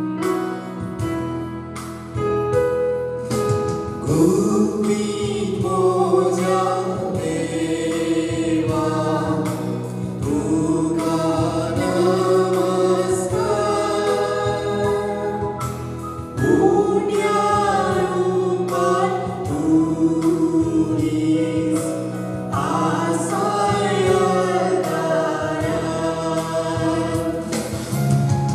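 Choir singing a Konkani devotional hymn over held keyboard chords.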